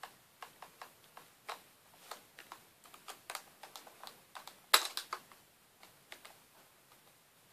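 Small Phillips screwdriver turning screws into a MacBook's metal RAM bracket: a run of light, irregular clicks and ticks, with one sharper click a little before the middle.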